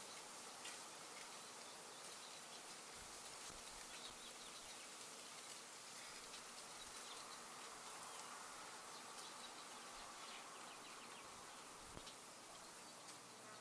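Faint outdoor ambience: a soft, even hiss with insects buzzing and scattered small high ticks. A single sharp click comes about twelve seconds in.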